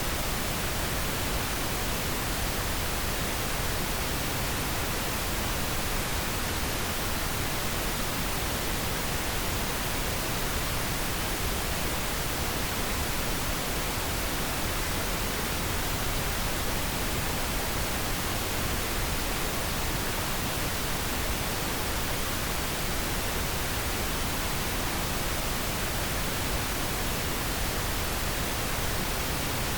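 Steady, unchanging pink noise: an even hiss spread across all pitches, with no tones or breaks.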